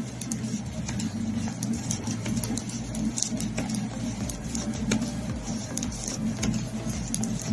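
Metal knitting needles clicking and scraping against each other in quick, irregular ticks as stitches are worked, over a steady low hum.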